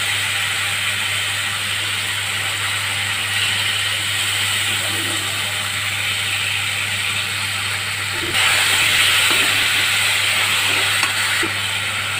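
Tomato-sauce masala sizzling steadily in a steel kadhai over a gas flame, over a constant low hum, with a few light scrapes of the steel ladle; the sizzle grows louder about eight seconds in.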